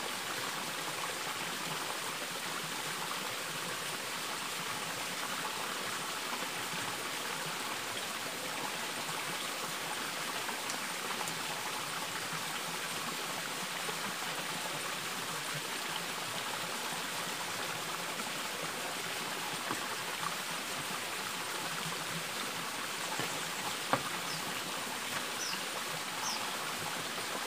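Flowing water running steadily, an even rushing hiss, with a single small knock near the end.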